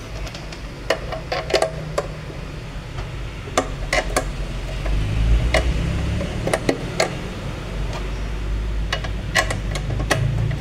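Scattered sharp metallic clinks and clicks, a dozen or so irregularly spaced, over a low steady hum that grows louder about halfway through.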